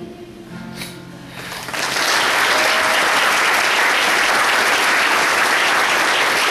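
The last note of a children's choir song dies away, then an audience starts applauding about two seconds in, the clapping loud and steady.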